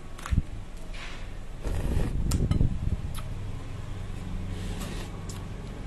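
Cooked crab shell being cracked and pulled apart by hand, heard as a few sharp snaps and short crackling bursts, over the steady low hum of an electric stand fan.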